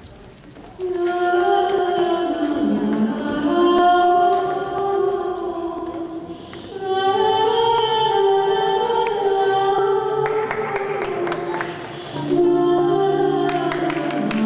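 Accompaniment music for a rhythmic gymnastics ball routine, with sung vocals in long held notes. It starts about a second in and dips briefly twice between phrases.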